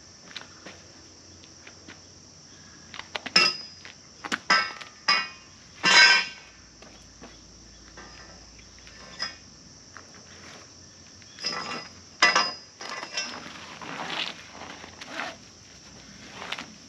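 Metal tubing knocking and clanking, each hit ringing briefly: a handful of knocks a few seconds in, the loudest about six seconds in, and another cluster around twelve seconds. A steady high insect drone runs underneath.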